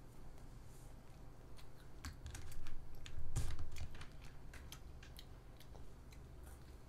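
Child chewing a fish-shaped wafer ice cream sandwich: a run of small crisp clicks and crackles, loudest about halfway through.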